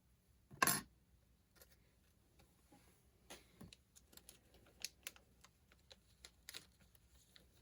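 Small plastic packaging and a small replacement part being handled: one short, loud noise about a second in, then scattered light clicks and taps.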